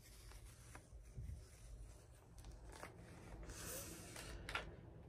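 Faint rustling of the white paper wrap being peeled off a new iPad Air, with a longer soft peel about three and a half seconds in and a few light taps.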